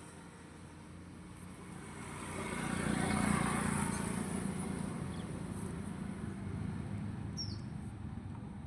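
A vehicle passing by outdoors: a rushing noise that swells to a peak about three seconds in and slowly fades, with a brief bird chirp near the end.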